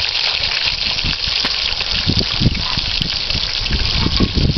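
Whole fish frying in hot oil in a wide pan, a steady loud sizzle, with irregular low thumps underneath.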